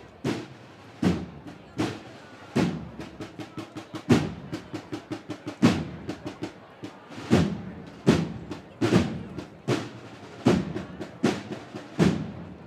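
Marching band drums playing alone: snare and bass drum strokes about every 0.8 s, with a quicker run of snare strokes in the middle, then stopping near the end.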